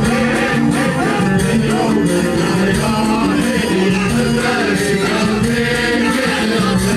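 Emirati traditional dance music: a group of men singing together over a steady percussion beat.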